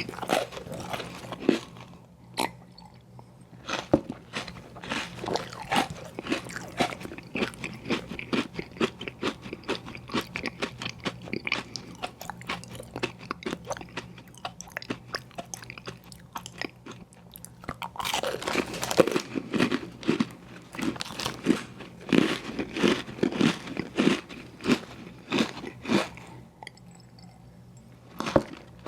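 Close-miked eating of ice cream sandwiches: steady biting, chewing and crunching in quick, irregular clicks. It grows louder and denser about two-thirds of the way through, then pauses briefly near the end.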